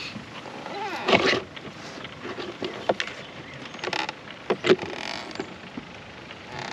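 Knocks and clicks of gear being handled in a small inflatable pontoon boat, with squeaky creaks about a second in and again around four seconds in as the angler swivels on the boat seat.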